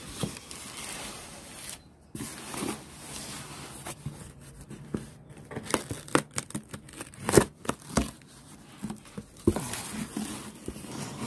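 A folding pocket knife slicing through packing tape on a cardboard box: scratchy cutting strokes and the tape tearing, with several sharp clicks and taps. Near the end the cardboard flaps are pulled open with a rustle.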